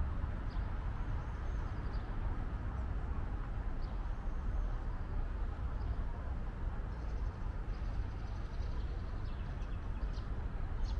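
Outdoor ambience: a steady low rumble with small birds chirping faintly, several trilled phrases in the second half.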